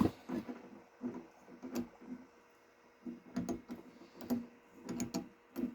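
Metal hand tools clicking and clinking as they are handled in a tool kit, in a scatter of short, light taps.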